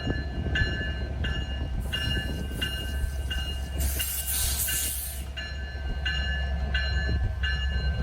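Locomotive electronic bell (E-bell) ringing steadily, about one ding every 0.6 seconds, over the low rumble of the train. A burst of hiss rises about four seconds in.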